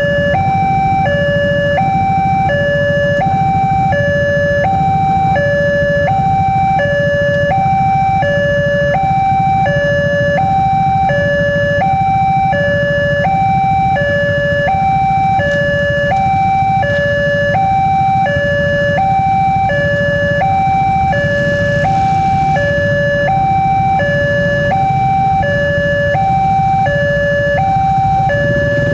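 Railway level-crossing warning alarm from the signal's loudspeaker: an electronic two-tone signal alternating high and low, about one high-low cycle a second, over the low running of idling motorcycle engines waiting at the barrier.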